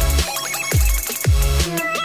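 Background electronic music with deep bass drum hits that slide down in pitch, under sustained synth notes and high percussion.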